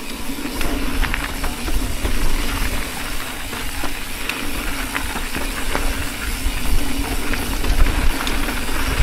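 Mountain bike riding down a rough dirt trail: wind buffeting the action camera's microphone, tyre noise over dirt and rocks with a steady hum, and frequent rattles and knocks from the bike over bumps.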